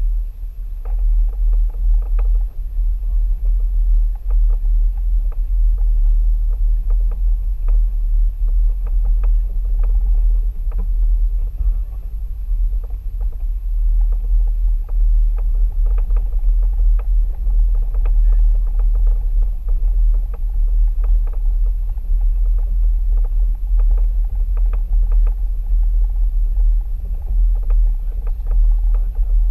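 A Mercedes-Benz ML350 BlueTec SUV driving a gravel track, heard through a bonnet-mounted camera: a steady low rumble of wind and road noise, with scattered crackles of gravel under the tyres.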